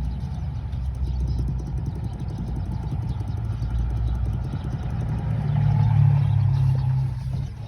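Chevrolet Cruze engine idling with a steady low hum, which swells louder for a couple of seconds near the end and then falls back.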